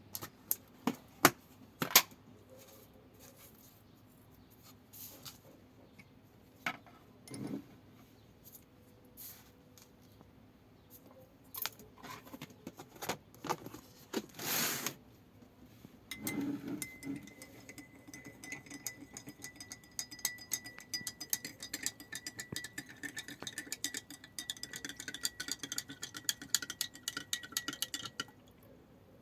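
Salt water being mixed in a drinking glass: a few sharp clinks against the glass, then from about halfway a long run of quick, even clinks as the salt is stirred in, with the glass ringing faintly.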